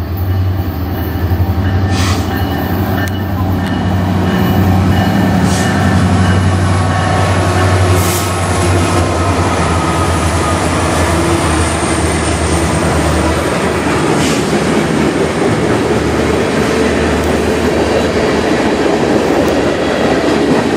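CN diesel freight locomotives passing close by, a strong low engine drone with a few sharp clacks from the wheels. About two-thirds of the way through the drone fades as loaded tank cars rumble past.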